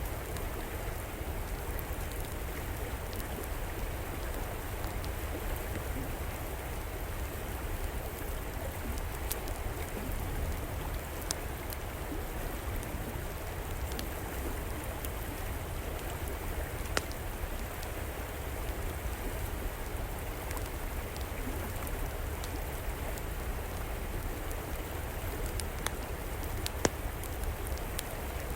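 Steady rush of a flowing river, with the sharp crackles and pops of a wood fire scattered over it and a few louder pops.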